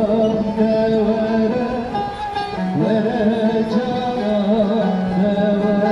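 A man singing into a microphone while playing a bağlama, the long-necked Turkish saz lute, its plucked strings sounding under his wavering vocal line.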